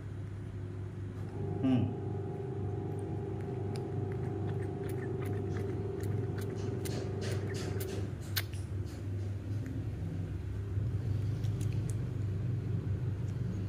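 Baby monkey sucking milk from a bottle nipple: a run of small wet clicks and smacks over several seconds, over a steady low hum.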